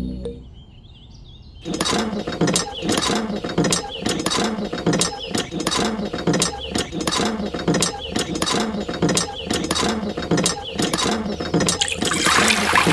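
Handle and plunger rod of a miniature hand water pump being worked by hand, clicking and clinking in a steady rhythm of about two strokes a second. Near the end, water starts pouring from the spout into a bamboo trough.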